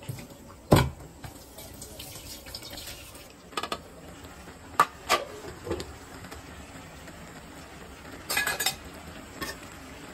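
Steel cookware and utensils clanking: pot lids, bowls and a spatula knocking and clinking now and then, with a handful of separate sharp knocks and a short rattling cluster of clinks near the end.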